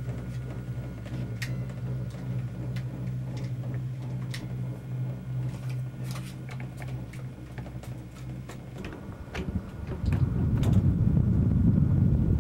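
Inside a cable-car gondola riding up the cable: a steady low hum with scattered light clicks and creaks. About ten seconds in, a louder, rough low rumble takes over.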